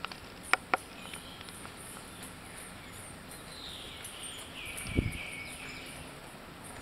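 Insects chirping in a steady high-pitched pulsing rhythm, with two sharp clicks about half a second in and a single dull thump about five seconds in.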